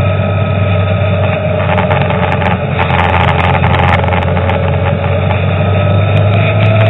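Car engine and tyre noise of a moving car, heard from inside the cabin as a steady loud drone. The engine note sags slightly, then starts to rise near the end.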